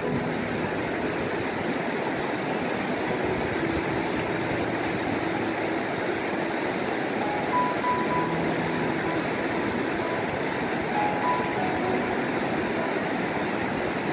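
Steady rushing noise of stream water and wind, unchanging throughout.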